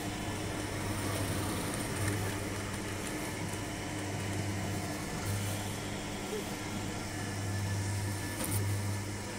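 Coin-operated kiddie train ride running, its motor giving a steady mechanical hum with a low drone that swells and fades several times.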